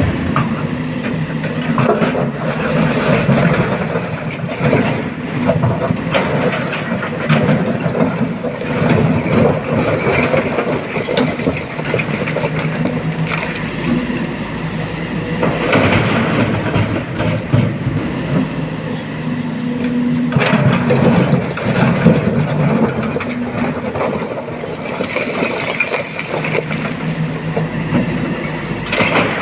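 Diesel engine of a SANY SY225 excavator running under load, its pitch rising and falling as it works.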